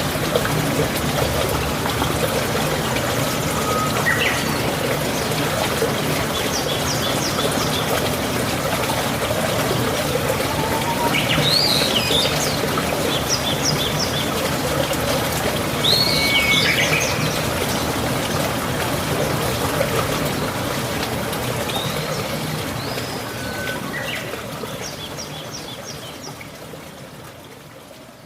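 Steady trickling, running water with birds chirping and giving short trills over it. The sound fades out gradually over the last several seconds.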